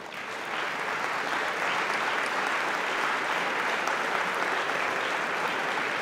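Large audience applauding, swelling up over the first half second and then holding steady.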